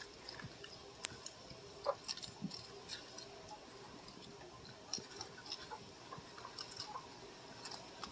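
Raccoon chewing dry cat food kibble: faint, irregular crunches and clicks, with one sharper click about a second in.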